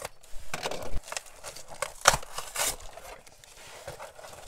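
A cardboard parcel being opened by hand: packaging and paper rustling and scraping, with irregular knocks, the sharpest about two seconds in.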